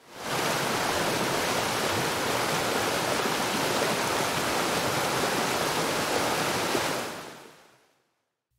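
Steady rushing-water noise, even and without any wave rhythm, fading in at the start and fading out about seven seconds in.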